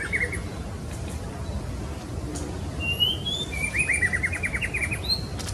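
Female white-rumped shama calling: a short rising whistle about halfway through, then a fast run of about ten quick descending notes. A steady low hum runs underneath.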